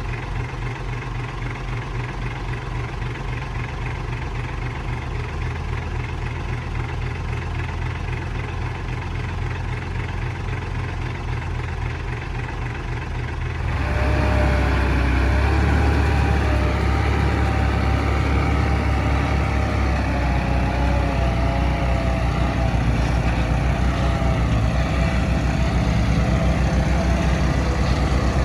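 Heavy diesel engine of earthmoving machinery running steadily with a low, even pulse. About fourteen seconds in, the sound jumps louder at once and a wavering higher whine rides over the engine.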